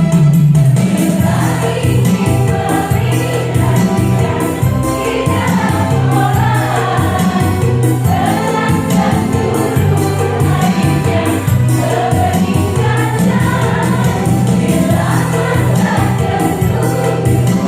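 Women's choir singing over steady instrumental accompaniment, the voices coming in about a second in after a short instrumental passage.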